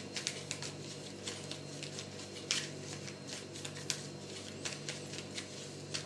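A deck of trading cards being handled and shuffled by hand: a run of light, irregular clicks and flicks, two of them a little louder, over a steady low hum.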